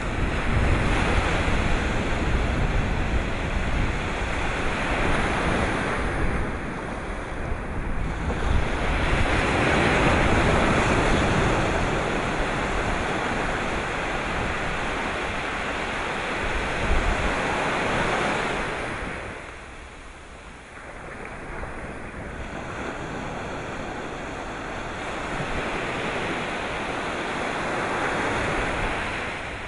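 Sea surf washing ashore, a loud rush that swells and eases with each wave, falling to a lull about two-thirds through before building again. Wind buffets the microphone with a low rumble throughout.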